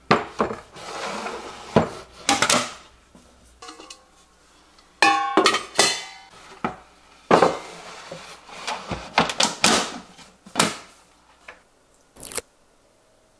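Plastic and glass food-storage containers and other kitchen items clattering and knocking as they are picked up, stacked and set down in a cabinet, in irregular bursts. A few clinks ring briefly about five seconds in, and there is a sharp click near the end.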